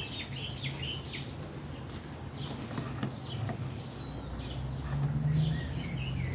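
Small birds chirping in many short, quick calls, over a low steady hum.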